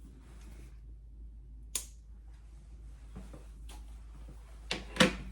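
Light handling noise of wind-chime parts being worked by hand, with a sharp click about two seconds in and a few louder knocks near the end, the last the loudest.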